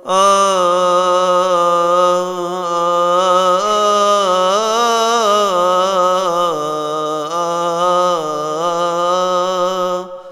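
A solo male voice chanting a Coptic Orthodox hymn unaccompanied: one long melismatic phrase on a held vowel, the pitch slowly winding up and down, sung in a single breath.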